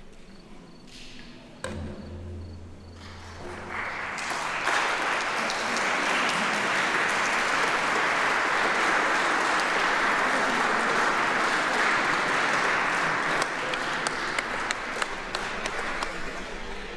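Audience applauding: the clapping swells a few seconds in, holds steady, then thins out near the end.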